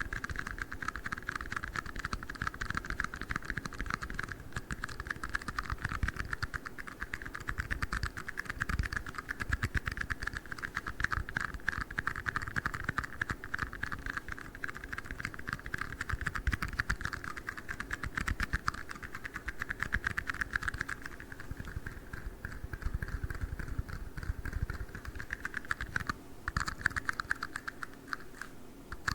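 Rapid, continuous tapping and clicking on tiny red cups, a dense patter of small clicks.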